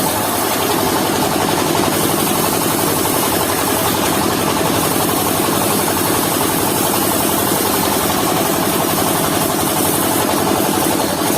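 Mobile circular-saw sawmill running steadily, its engine running at a constant speed.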